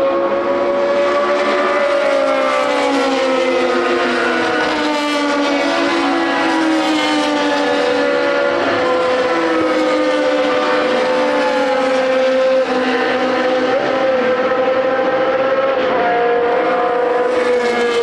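Several historic racing car engines at high revs overlap, their pitches rising and falling as the cars accelerate, shift gear and pass.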